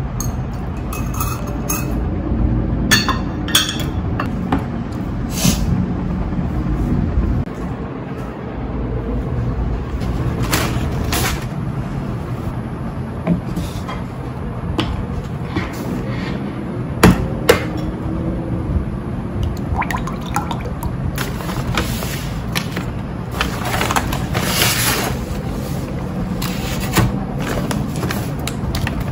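Table-top handling sounds over a steady low rumble: ceramic bowls and a spoon knocking together, juice poured from a carton into a glass mug, and a paper takeaway bag being handled, with two sharp knocks about halfway through.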